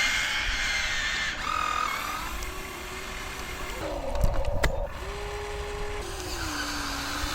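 Whine of small electric motors from scale RC construction machines, its pitch gliding up and down and changing abruptly several times. Two sharp clicks come near the middle.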